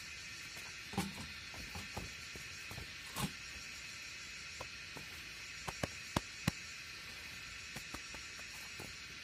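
Footsteps on a damp dirt path with the knocks and taps of an empty plastic jerrycan and a kettle being carried, a handful of short thuds and clicks, the sharpest a little past the middle. Under them runs a steady high buzzing of insects in the forest.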